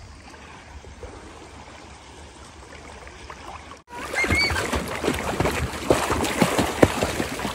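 Shallow seawater lapping softly; about four seconds in, after a cut, louder irregular splashing of a child kicking his legs while swimming.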